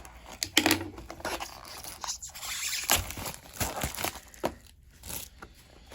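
Cardboard trading-card box being torn open and its wrapped card packs handled, with scattered tearing, crinkling and scraping noises.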